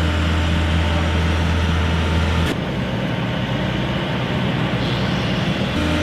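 A heavy engine running steadily, a deep hum over a noisy rumble. About two and a half seconds in the sound changes abruptly, and it changes again near the end.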